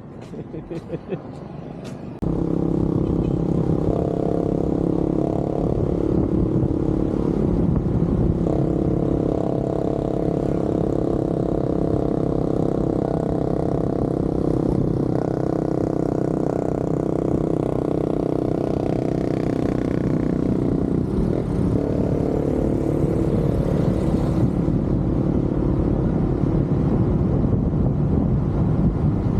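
A motor vehicle's engine running steadily while driving, starting a little over two seconds in, its pitch shifting briefly about two-thirds of the way through as the speed changes.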